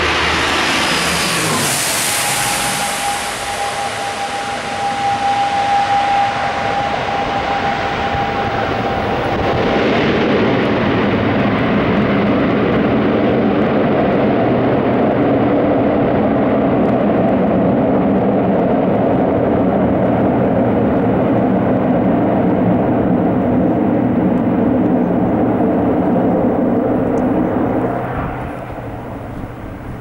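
ATR 72-600 turboprop airliner's two Pratt & Whitney PW127 engines and propellers during landing. A whine drops in pitch in the first two seconds and holds for several seconds. From about ten seconds in comes a loud, steady propeller drone as the aircraft rolls out on the runway, and it dies down about two seconds before the end.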